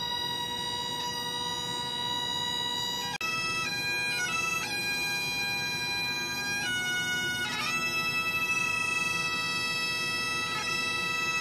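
A pair of Great Highland bagpipes playing together over their steady drones. The chanters hold one long note for the first few seconds, then the tune moves through several notes.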